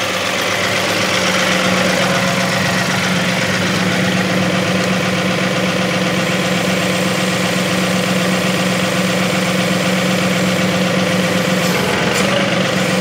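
John Deere 2038R compact tractor's three-cylinder diesel engine running steadily at about 1400 rpm.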